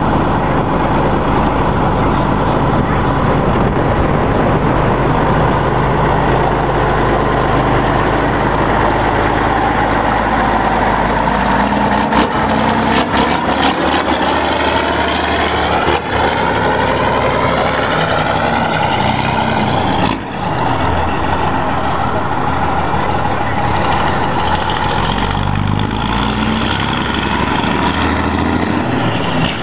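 Mack B61 truck's diesel engine pulling away and driving past, its pitch rising and falling as it revs through the gears. A few sharp clicks about twelve seconds in, and a brief drop in loudness around twenty seconds.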